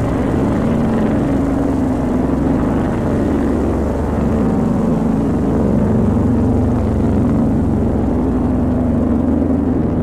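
A loud, steady low rumbling drone with a hum that wavers slowly in pitch.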